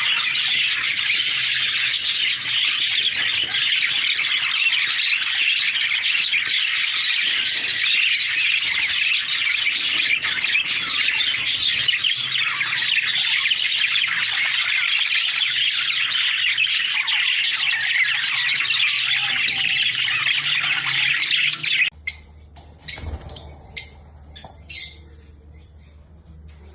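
Many small caged parrots chattering and squawking together in a dense, unbroken din. It cuts off abruptly about 22 seconds in, leaving a few scattered chirps.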